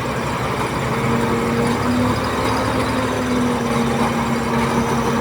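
Diesel engine of heavy earthmoving machinery running steadily under work, with a steady whine that sets in about a second in.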